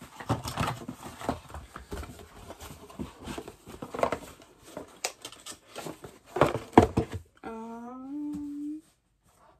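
Knocks and rustles of boxes and packaged items being handled and moved about. Near the end a person hums one note that rises for about a second, then the sound cuts out briefly.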